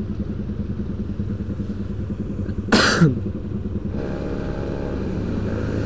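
Motorcycle engine idling with a steady pulse, its note growing fuller about four seconds in. A short loud burst cuts across it about three seconds in.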